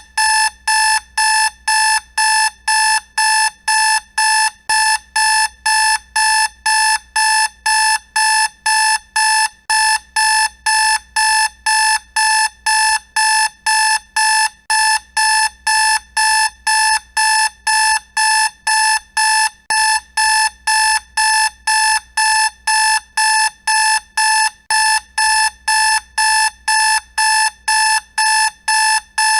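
Alarm clock beeping: a steady, unbroken series of identical high-pitched electronic beeps, about two a second, sounding to wake a sleeper.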